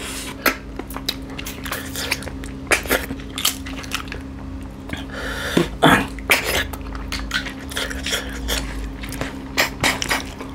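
Close-up eating of snail curry by hand: many short, sharp sucking noises as the snails are sucked out of their shells, mixed with clicks of shells against the plates and chewing.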